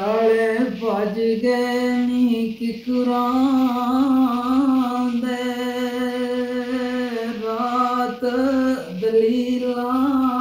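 A man singing a Gojri mahiya solo, without accompaniment, in long drawn-out held notes with small ornamental wavers in pitch, breaking briefly for breath twice.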